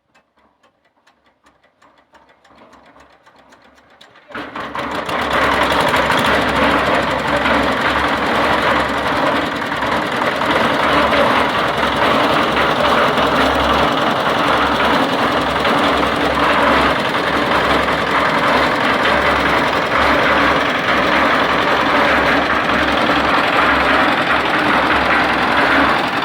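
Engine-driven concrete mixer running steadily, with a fast low pulsing under a loud mechanical din. Only a faint rapid ticking is heard before it comes in suddenly about four seconds in.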